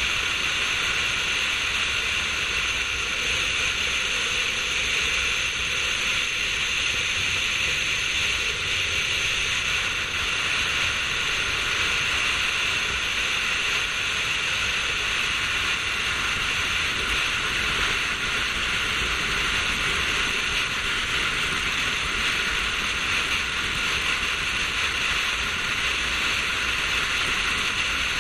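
Steady rush of wind and road noise buffeting a roof-mounted GoPro on a car travelling at speed; the hiss is even throughout, with no distinct engine note above it.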